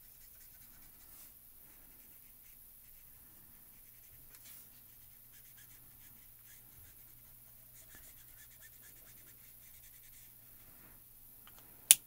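Faint scratchy strokes of a Copic alcohol marker's nib rubbing on stamped cardstock as grey is blended, in quick short strokes that come in runs. A single sharp click near the end.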